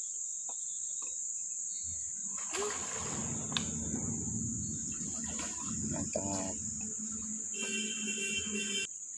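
Steady, high-pitched chorus of insects, with water sloshing and splashing around someone wading in the river.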